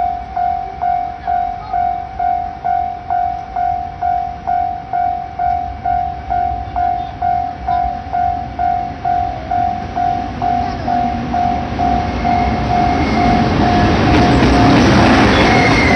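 Japanese level-crossing warning bell ringing with an even electronic ding, a little over two strikes a second. From about twelve seconds in, the rumble of an approaching freight train grows and nearly covers the bell near the end.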